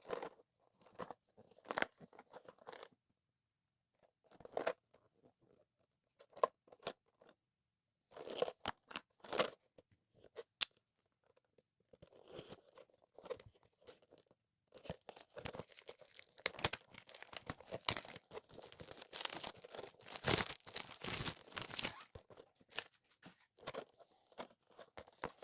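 Packaging being handled and opened: irregular crinkling, crunching and tearing of plastic and cardboard, with small clicks, coming in short clusters and turning busier and louder past the middle.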